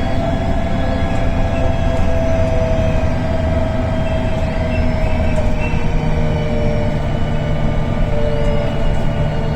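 VDL DB250 double-decker bus under way: engine drone with a steady turbocharger whistle over it. The whistle's pitch steps down a little about six seconds in.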